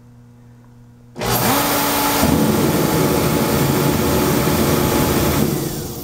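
Reddy kerosene torpedo heater's fan motor starting about a second in and running with a loud steady rush of air, a brief rising hum as it spins up, then winding down near the end. The shutdown is the circuit board cutting the fan because the disconnected photocell tells it there is no flame.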